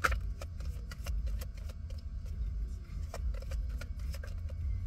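A tarot deck being shuffled by hand: a quick, irregular run of light card clicks and snaps over a steady low rumble.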